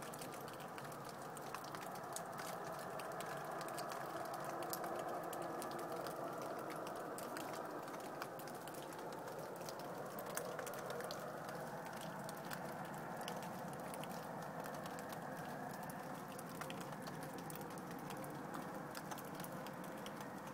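Steady distant roar of unknown origin, swelling slightly and easing again, with many faint scattered ticks over it.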